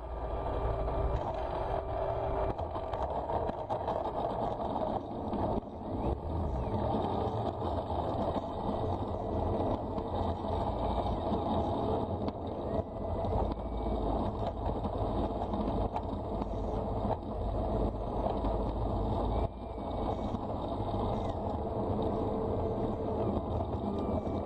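Electric motor and propeller of a radio-controlled model warbird, an E-flite 60 brushless motor in a Phoenix Lysander, heard from a camera on the airframe, running at low power while the plane rolls over asphalt. Steady whirring with rumble and rattle from the wheels and airframe, and a faint motor whine that shifts pitch now and then.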